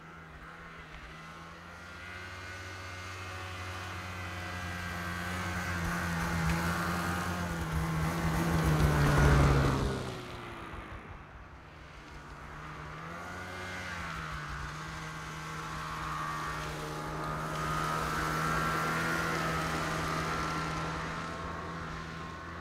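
A vehicle engine running, growing louder to a peak about nine seconds in, then falling away sharply with a drop in pitch, like a vehicle passing close by. After that it runs on more steadily, with a brief wobble in pitch.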